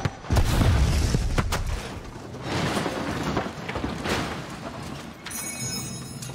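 Explosive charges blowing the body panels off a small car: a sharp blast at the start, a heavy low rumble, then several more sharp cracks and clatter of debris, fading toward the end.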